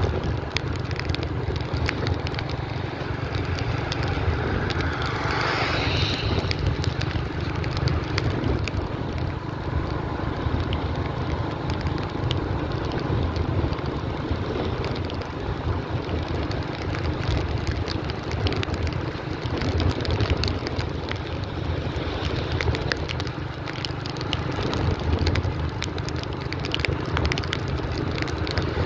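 Motorbike riding: the engine running and wind rushing over the microphone, a steady low rumble. About five seconds in a brighter rushing noise briefly swells and fades.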